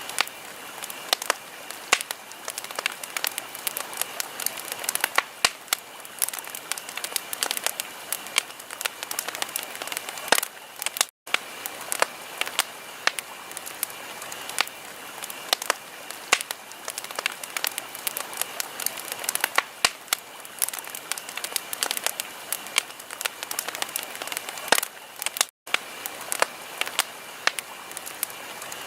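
Wood fire crackling: dense, irregular pops and snaps over a steady hiss. The sound cuts out for an instant twice, about 11 and 25 seconds in.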